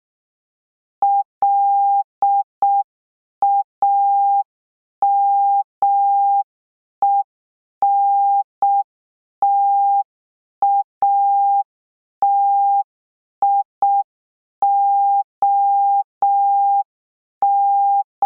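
Morse code sent as a single steady beeping tone just under 1 kHz, keyed in short dits and long dahs with clear gaps between letters. It spells out L-A-M-E-N-T-A-T-I-O-N ("lamentation") at a slow practice speed.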